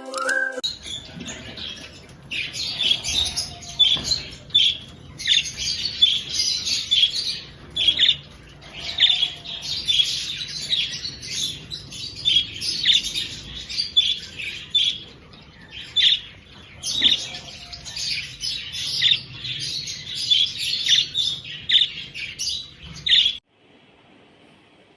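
A flock of small birds chirping and squawking continuously, many high, short calls overlapping. It cuts off suddenly near the end.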